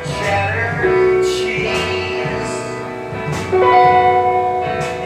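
Music: a guitar-backed song with long held notes.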